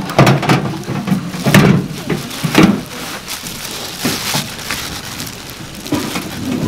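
Plastic bags crinkling and rustling close by as they are handled, in several short, loud bursts that thin out after the first three seconds.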